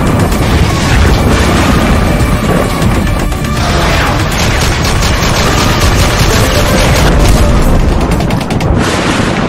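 Sound-effects logo sting: booms and rapid gunfire with crashing debris over music.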